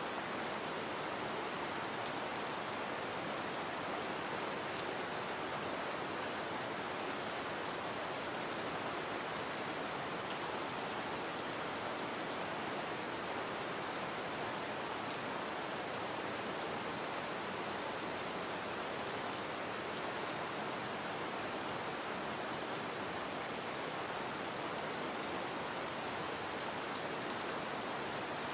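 Gentle rain falling steadily: an even hiss flecked with the fine patter of individual drops.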